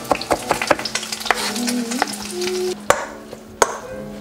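A kitchen knife chopping and scraping minced lingcod into a paste on a cutting board: a run of sharp taps over a sizzling hiss. About three seconds in, the hiss drops away and a few spatula scrapes and knocks sound in a steel mixing bowl.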